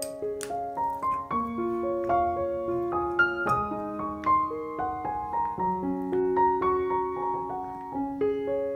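Background piano music, a melody of held notes, with a few short clicks over it, the sharpest about three seconds in.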